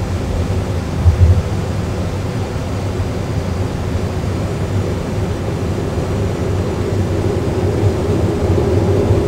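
Airbus A320 full flight simulator's cockpit sound of the landing gear extending: a thump about a second in, then a steady low rumble of airflow that grows louder toward the end as the gear comes down.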